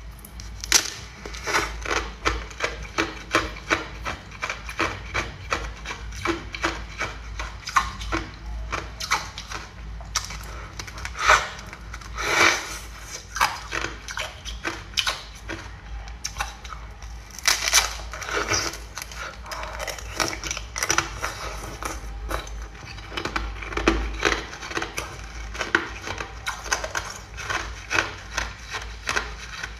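Thin ice being bitten and chewed, crunching and crackling between the teeth in a quick, irregular run of sharp crunches, several a second, with a few louder bites along the way.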